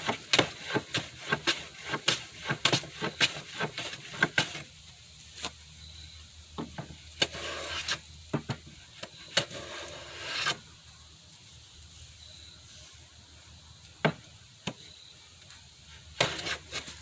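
Hand plane working a narrow wooden rail to even thickness: a quick run of short rasping strokes for the first few seconds, then two longer strokes, and a few light knocks of wood near the end.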